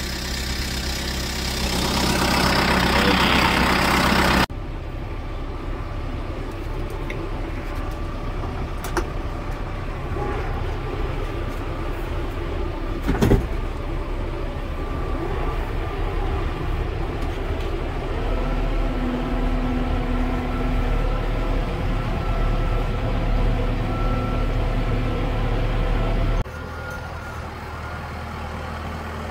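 Kubota M4 tractor's diesel engine running steadily, heard from inside the cab, with one sharp knock about thirteen seconds in. The sound changes abruptly a few seconds in and again near the end.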